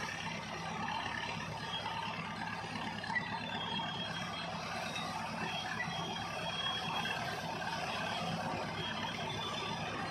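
BEML D80-A12 crawler bulldozer's diesel engine running steadily under load, with a faint high-pitched squeal coming and going.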